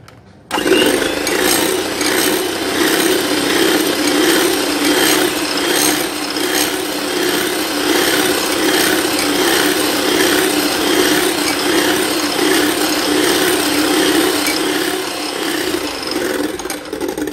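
Electric mixer's motor and twin wire beaters whipping cream and condensed milk in a ceramic bowl. It switches on about half a second in, runs steadily, and winds down near the end.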